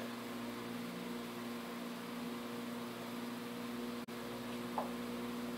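Steady low hum with a faint hiss, the room's background noise; it cuts out for an instant about four seconds in.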